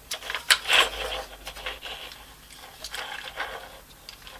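Hard plastic drill battery casing handled and pushed against the battery pack being fitted inside it: irregular scraping and rubbing with small clicks, loudest about half a second in.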